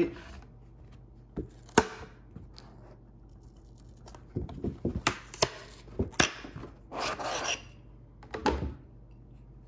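Cracks, clicks and scraping as 3D-printed plastic pieces pop off a flexed removable printer build plate and are handled on its surface. There is one sharp crack about two seconds in, a cluster of clicks and scrapes in the middle, and a longer rubbing scrape near the end.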